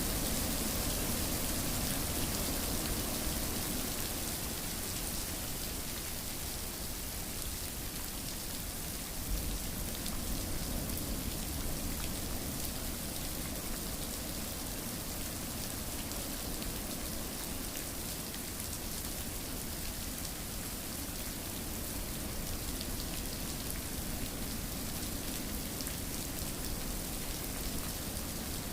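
Steady rain falling and pattering on a surface, a continuous even hiss of drops.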